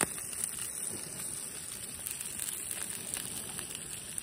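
Trout frying in a small pan over a backpacking canister stove: a steady sizzle with small pops and crackles.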